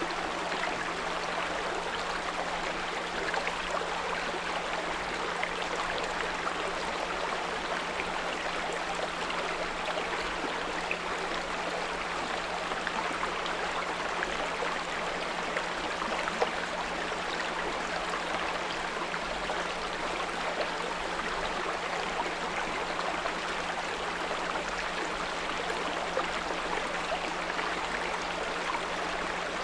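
A small brook babbling and trickling steadily, with a constant low 174 Hz pure tone sounding underneath.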